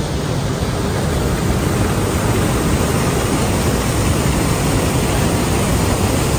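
Fast mountain river rushing over rapids and rocks: a loud, steady wash of whitewater.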